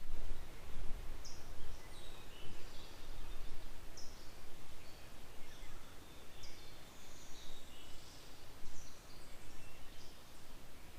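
Wind rumbling on the microphone, with small songbirds chirping in short high notes throughout.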